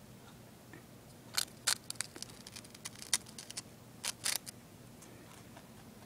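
Rabbit biting and chewing crunchy toast: a quick run of sharp crunches that starts about a second and a half in and stops about three seconds later.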